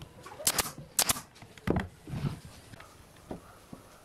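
Pneumatic brad nailer firing twice into a wooden chair-frame joint, the shots about half a second apart, followed by a few dull knocks of the tool and wood being set down on the bench.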